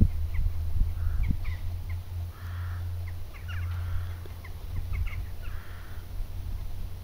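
Wind rumbling on the microphone in gusts, with birds calling: many short chirps and a few harsher caw-like calls.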